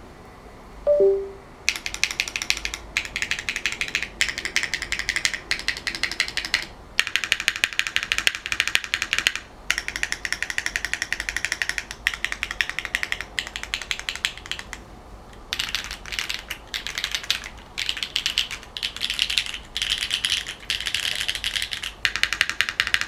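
Fast typing in bursts with short pauses on a Neo80 Cu mechanical keyboard: HMX Retro J switches under GMK keycaps, on an aluminium plate, gasket-mounted in a heavy brass-bottomed case. Just before the typing starts, there is a brief low two-note tone, falling in pitch.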